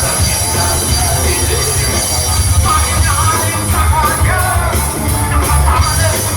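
Live rock band playing: electric bass, drums and electric guitar, loud and dense, with a wavering lead melody bending up and down over it from about halfway.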